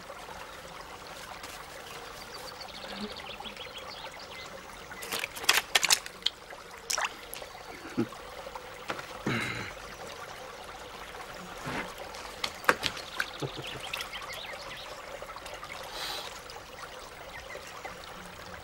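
Water trickling steadily in a small stone well-fountain, with scattered sharp clicks and taps, the loudest a quick cluster about five to six seconds in.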